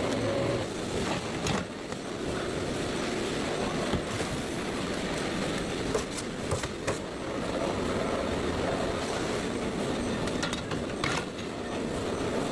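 Food-processing machinery running with a steady rumble, broken by a few sharp knocks.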